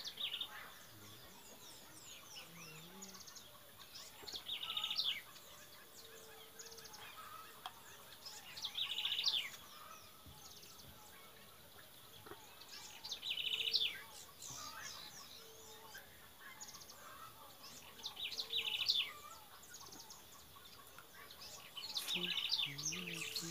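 A songbird singing a short trilled phrase over and over, about every four to five seconds, with fainter chirps from other birds between the phrases.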